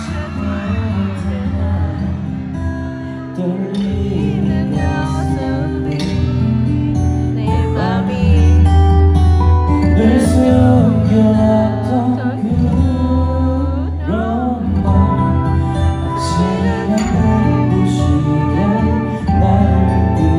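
A man singing a slow song live into a microphone over a backing track, heard through the hall's loudspeakers.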